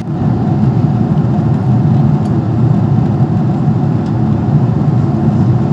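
Jet airliner cabin in cruise: a steady low drone of engines and rushing air, with a faint hum above it.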